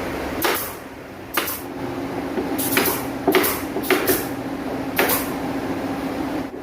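A string of sharp, irregular knocks, roughly one or two a second, over a steady low hum; a steady running noise cuts off about half a second in.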